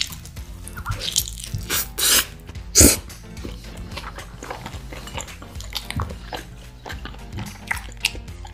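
Biting and chewing crisp pizza crust, with several crunchy bites between about one and three seconds in, the loudest near three seconds, then smaller chewing clicks, over background music.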